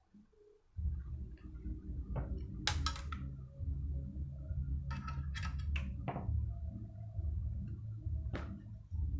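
Small clicks and taps of hard plastic and metal laptop parts being handled, in three clusters, over a steady low hum: the latch bracket being fitted to a drive caddy.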